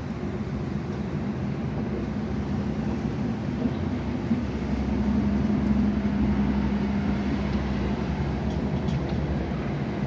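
Steady low mechanical rumble, with a hum that swells from about five seconds in and fades near eight seconds.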